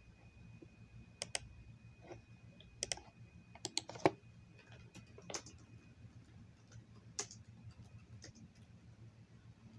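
Scattered, irregular clicks and taps of computer keys, some in quick pairs, over a low steady hum. A faint steady high tone stops about six seconds in.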